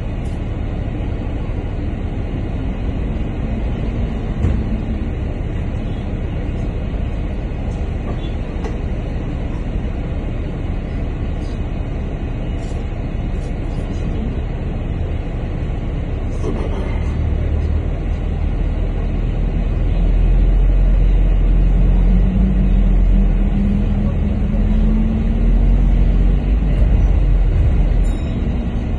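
Double-decker bus engine and body rumble heard from inside the bus, steady at first, then louder from about two-thirds of the way in as the engine note slowly rises and the bus pulls away.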